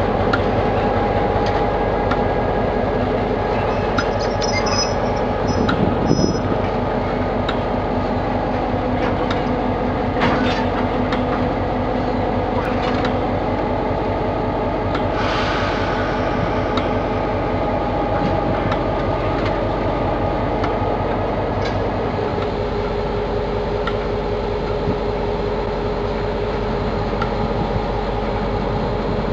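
KiwiRail DC class diesel-electric locomotive running steadily while shunting wagons, with a brief high squeal about five seconds in.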